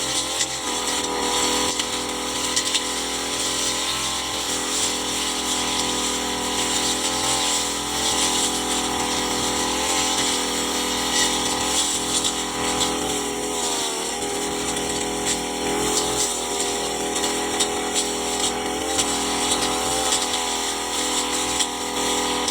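Petrol brush cutter running at high speed while cutting grass and brush, a steady motor whine whose pitch wavers slightly as the load changes.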